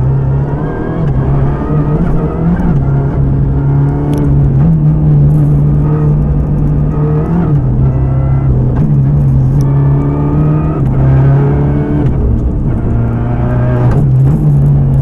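Renault Clio R3T rally car's turbocharged four-cylinder engine heard from inside the cabin at full stage pace, revving hard. Its pitch climbs and drops back again and again through gear changes, with a few sharp clicks and road noise beneath.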